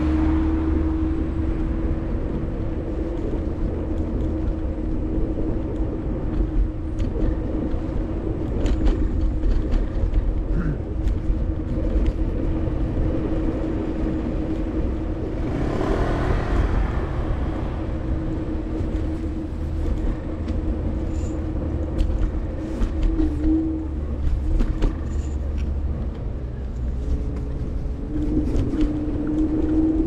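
Electric kick scooter riding along a street: its motor whines at a steady pitch over low road and wind rumble, the pitch wavering near the end as the speed changes. A car passes about halfway through.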